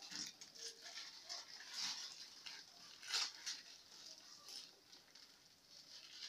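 Aluminium foil crinkling and tearing in short, irregular bursts as it is peeled off a baked roll by hand.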